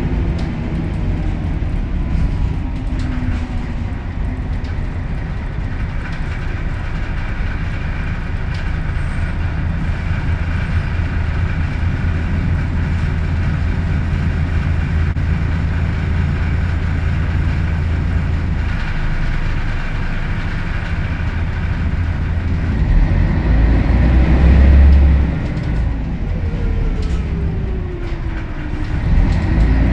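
Scania L113CRL city bus heard from inside the cabin while driving: the rear-mounted 11-litre six-cylinder turbo diesel and ZF five-speed automatic give a continuous low drone with a steady whine over it. Near the end the drone surges louder and a whine falls in pitch, then the engine pulls harder again.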